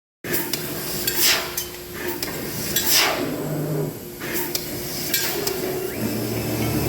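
A fiber-laser tube cutting machine at work: metallic clatter and clinks of the metal tube and machine parts, with hissing swells from the cutting.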